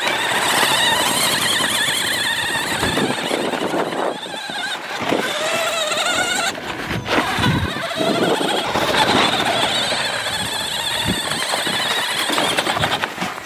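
Battery-powered Monster Jam Grave Digger RC monster truck driving over dirt: its electric motor and gears whine, the pitch rising and falling with the throttle. A few knocks come as the big tyres bump over the ground.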